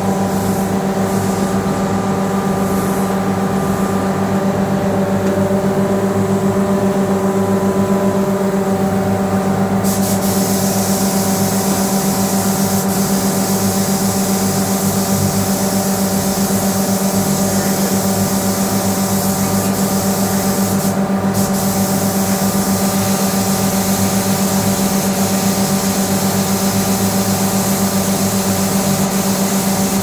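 Air spray gun hissing as it sprays paint, starting about a third of the way in and running on with one brief break about two-thirds through, with a few short bursts before. Under it the spray booth's electric motor hums steadily.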